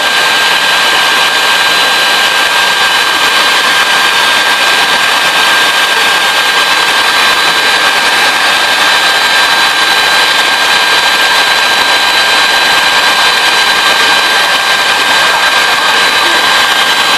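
Electric mixer running steadily at high speed, whipping eggs into a foam for sponge cake, a constant loud motor whine.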